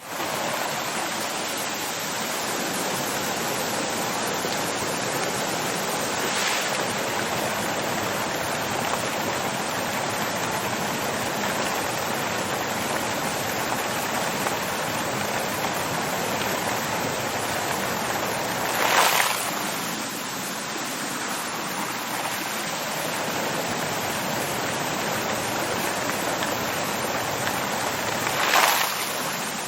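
Water fountain running: a steady splashing rush of falling water, with brief louder splashes about six seconds in, again near twenty seconds and near the end.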